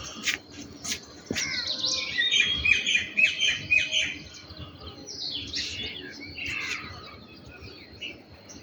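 Several birds chirping together in the trees at dawn: a dawn chorus, with a quick run of loud, rapidly repeated chirps from about two to four seconds in and another cluster of calls near the middle to end.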